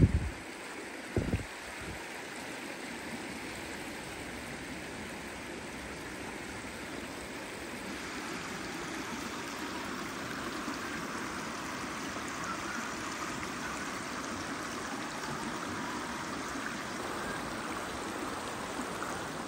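A creek flowing steadily, an even rushing of water that grows a little louder about halfway through. Two brief low thumps near the start.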